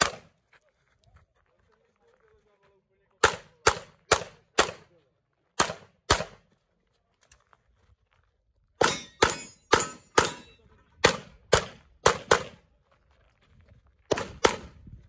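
Glock 17 9 mm pistol shots in quick strings with short pauses between: four shots about three seconds in, a pair around six seconds, a fast run of about eight shots from nine to twelve seconds, and a pair near the end.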